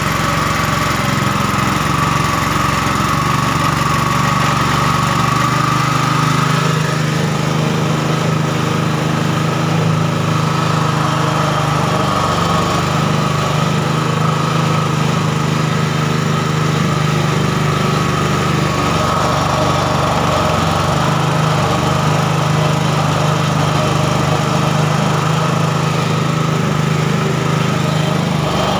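Motorized citrus juicing machine running steadily while pressing fruit, a continuous mechanical hum whose tone shifts slightly twice.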